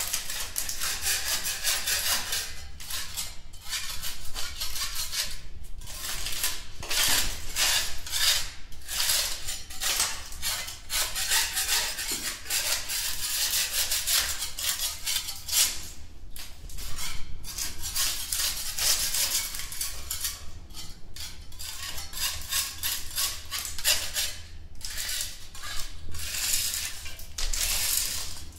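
Dense, irregular mechanical clicking and scraping with brief pauses.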